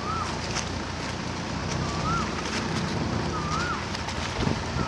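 Long-tail boat underway: its engine runs steadily under the rush of water along the hull and wind on the microphone. A short whistled note that rises and falls repeats about every second and a half.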